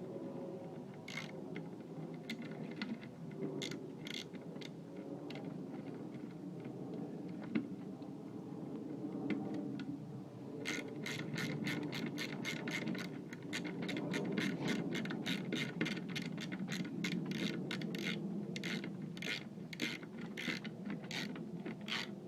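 Ratchet wrench clicking as bolts are tightened down: scattered clicks at first, then a fast, even run of clicks from about halfway, over a steady low hum.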